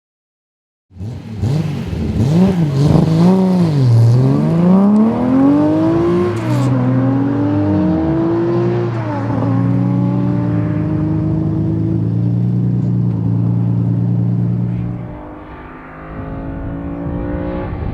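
1969 Datsun 240Z's straight-six engine under hard acceleration, starting about a second in. The pitch swings up and down, climbs in steps with gear changes, holds steady for a few seconds, then drops briefly and rises again near the end.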